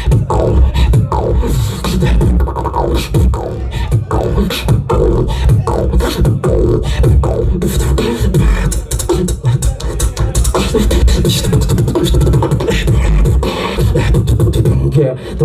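Human beatboxing into a handheld microphone, amplified through a live venue's PA: deep bass with rapid drum-like kicks, snares and clicks, and some sliding pitched vocal sounds. The routine stops near the end.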